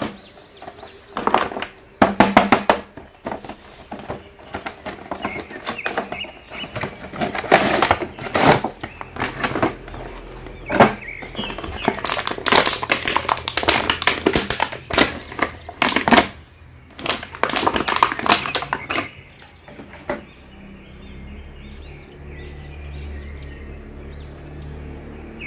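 Clear plastic packaging and a cardboard toy box handled while an action figure is unboxed: irregular crinkling, crackling and clicking that stops about twenty seconds in, leaving a softer steady low sound.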